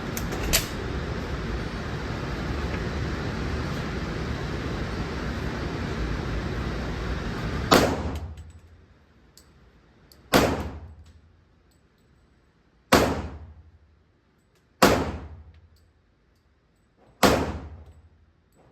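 Pistol shots at a range: five single shots fired at a deliberate pace, about two to two and a half seconds apart, each a sharp crack with a short ringing tail. Before them is a steady rushing noise with one fainter crack about half a second in.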